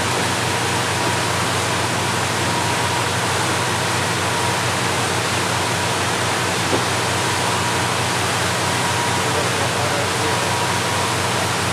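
Steady rushing noise of rain-swollen waterfalls and heavy rain, with the low hum of a boat's engine beneath it.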